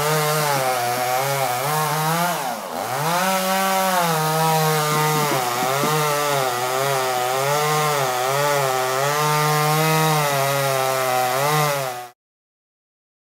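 Two-stroke chainsaw running and cutting wood, its engine pitch wavering up and down as it bogs under load and picks up again, with one deep dip and recovery about two and a half seconds in. It cuts off abruptly near the end.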